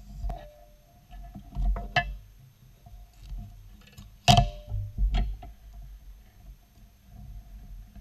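Hands handling a wooden workpiece and the blade clamp on a scroll saw: scattered knocks and clicks against the metal table and clamp, the loudest about halfway through, over low rumbling handling noise.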